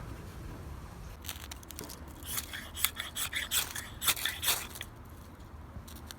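A quick run of short, crisp snips and scrapes lasting about two seconds, starting about two seconds in, over a low steady background.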